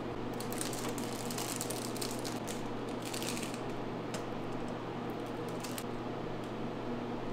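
Light rustling and small clicks of hands working at a counter, over a steady electrical hum; the rustling is busiest in the first half.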